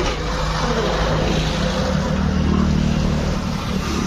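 A motor vehicle's engine running, getting louder toward the middle and easing off near the end.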